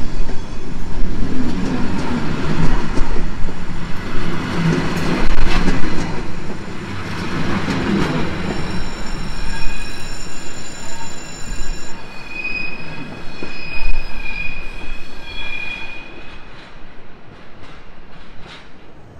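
A train moving through the station tracks: rumbling and clattering over the rails, then a high, steady wheel squeal of several tones from about nine seconds in, fading as the train draws away near the end.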